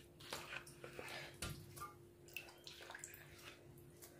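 Freshly washed, chopped spinach and spring onion being tipped into a steel pot and mixed by hand: a string of faint, short rustles.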